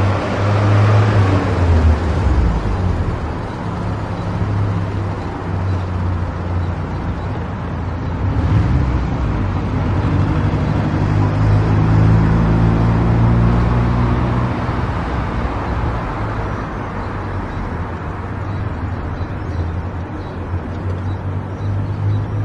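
A car driving along a road: steady engine hum with tyre and road noise, the engine note rising a little in the middle and easing back afterwards.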